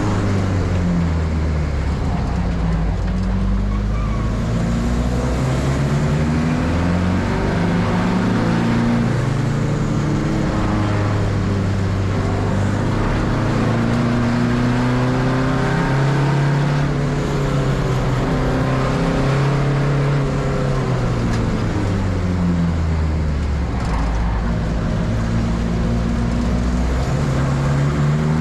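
Car engine running hard on a race track, its pitch climbing and falling again several times as it accelerates and slows.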